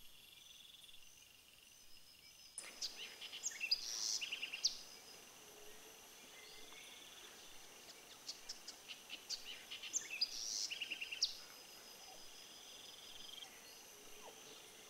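Tropical forest ambience: insects trilling steadily in high tones, with birds chirping and calling in two busy spells, about three seconds in and again from about eight to eleven seconds in. No howling from the monkeys.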